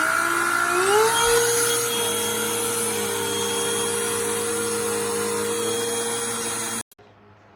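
Cordless handheld car vacuum's brushless motor whining up to speed over about the first second, then running at a steady high pitch. It stops abruptly near the end.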